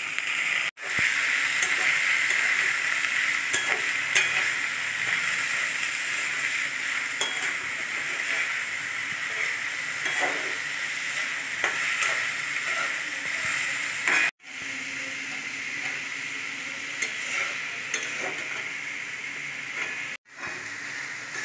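Onion, capsicum and carrot sizzling in hot oil in a kadai, a steady frying hiss, while a metal spoon stirs and scrapes them, with scattered clicks against the pan. The sound breaks off briefly three times.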